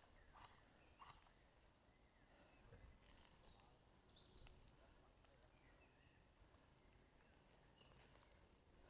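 Near silence: faint outdoor quiet with a few faint clicks early on and scattered faint bird chirps.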